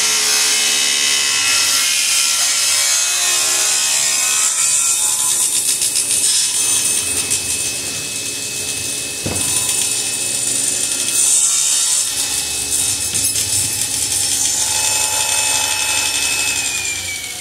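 Table saw ripping a long board on a straight-line jig, cutting a straight edge onto a crooked board, with a steady high whine under the cutting noise. Near the end the whine starts falling in pitch and the sound drops as the saw spins down.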